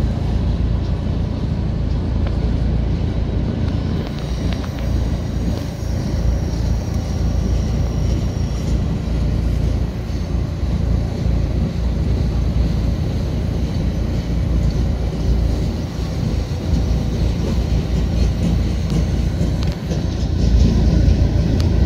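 Freight train of loaded flatcars rolling past: a steady low rumble of wheels on rails.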